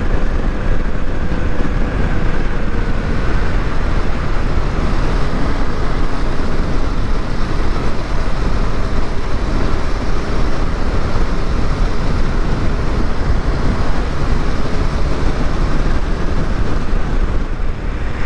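KTM 390 Adventure's single-cylinder engine running at a steady cruise, heard from the rider's seat together with wind and road noise.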